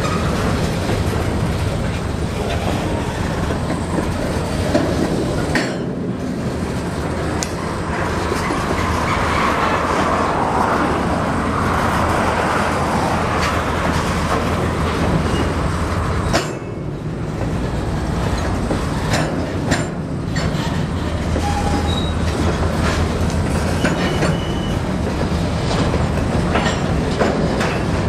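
Freight train of covered hopper cars and tank cars rolling steadily past, its steel wheels clicking over the rail joints.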